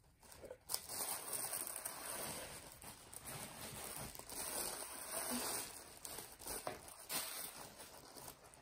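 Tissue paper rustling and crinkling as it is pulled out of a cardboard box, a busy crackle that starts about a second in and dies down near the end.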